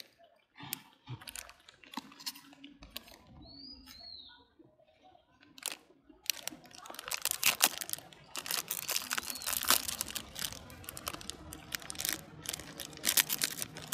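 A macaque handling and tearing at a crinkly plastic snack packet: a dense run of sharp crackles and rustles from about six seconds in, after scattered softer rustles. A short high chirp sounds about four seconds in.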